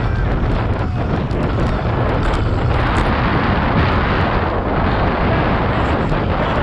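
Wind rushing over the microphone of a handlebar-mounted camera on a road bike racing at about 22 mph: a loud, steady rumbling rush, with a few small clicks and rattles from the bike.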